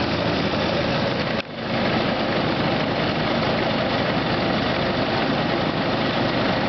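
Concrete mixer truck's engine running steadily while it pours concrete for a slab, with a dense mechanical rumble. The sound dips sharply for a moment about a second and a half in, then carries on.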